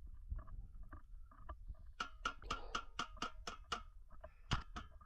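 Quick light metal taps on a rusty steel stovepipe elbow, a small hand tool striking the joint about five times a second for a couple of seconds, then one sharper knock: the elbow being tapped down onto the pipe.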